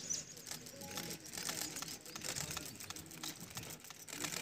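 Rapid, irregular clicking in quick runs, with faint murmuring voices underneath.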